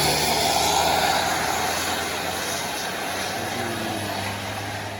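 Large bus passing close by and driving away, its engine and tyre noise slowly fading.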